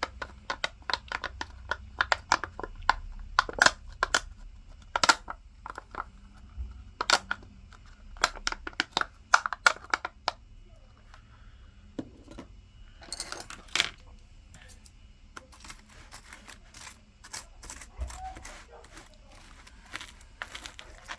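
Plastic food-delivery packaging being opened and handled: a long series of sharp crinkles and clicks, with a denser rustle of crumpling and tearing about thirteen seconds in.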